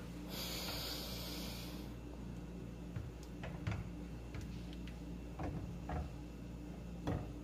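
A silicone spatula stirring thick sauce in a frying pan: a short hiss in the first second or two, then scattered soft clicks and taps against the pan, over a steady low hum.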